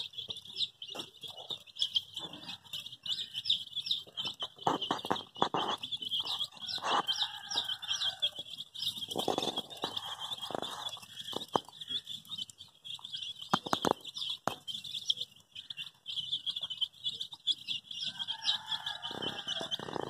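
A flock of baby chickens peeping continuously, many short, high calls overlapping, with irregular light taps among them.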